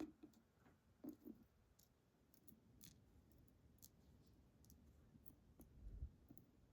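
Faint, scattered light clicks and ticks of small lock parts and tools being handled while a pin tumbler lock is taken apart, with a soft low thump about six seconds in.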